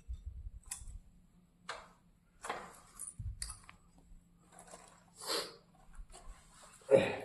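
Scattered clicks and knocks of small metal expeller parts being handled, with the loudest knock near the end.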